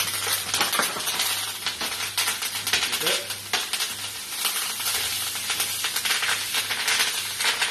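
Venison backstrap searing in a very hot pan with butter and thyme, sizzling and crackling steadily as the meat caramelises.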